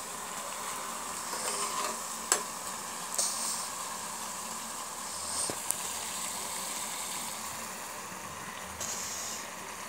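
Jalebi frying in hot ghee in a steel pan: a steady sizzle, with a few sharp clicks and brief scrapes as a metal utensil turns the coils against the pan.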